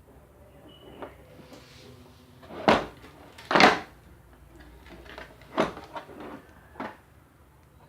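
Handling sounds: a few separate sharp knocks and clicks, the loudest about three and a half seconds in, with faint rustling between them.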